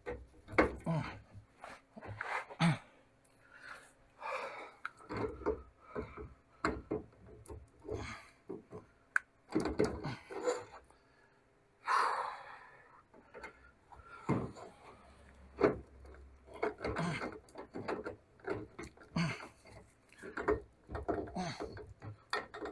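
Irregular rubbing, scraping and knocking of metal parts on a VW Beetle front beam's trailing arm, as a part is worked and wiggled by hand. The part is binding and won't seat.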